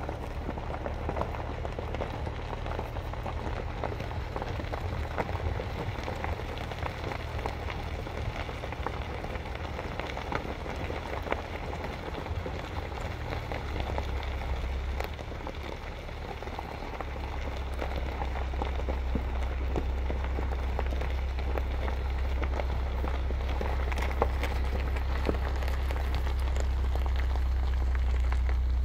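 Low, steady hum of a slow-moving vehicle's engine over a dense crackle of crunching gravel. The engine hum grows louder a little past halfway through.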